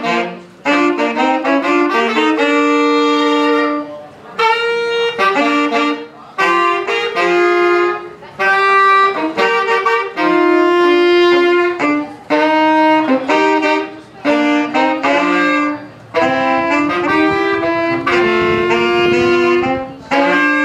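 Two saxophones playing a jazz duet, often in two parts at once, in short phrases with brief breaks between them.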